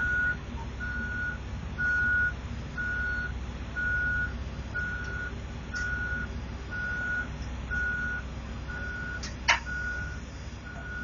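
Backup alarm beeping steadily, one high beep about every three-quarters of a second, over the low running of heavy diesel machinery as the excavator lifts the overturned dump trailer. A single sharp knock about nine and a half seconds in.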